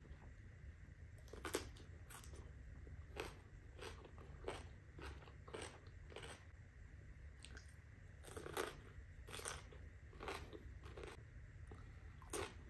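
Raw cucumber being bitten and chewed: crisp crunches at irregular intervals, roughly one a second.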